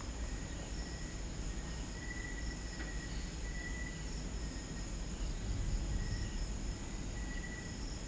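Crickets chirping in a steady chorus, several trills at different pitches, the lowest swelling and fading every second or two. A low rumble of background noise runs underneath.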